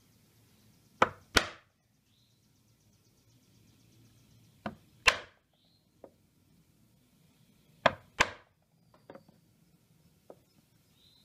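A carving gouge is struck on its handle, driving it straight down into the wood to set in the curved cuts. The knocks are sharp and come in three loud pairs a few seconds apart, followed by a few lighter taps near the end.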